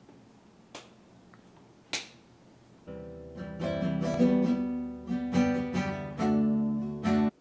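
Two sharp clicks in the first two seconds, then an acoustic guitar played with plucked notes and chords for about four seconds, cut off abruptly near the end.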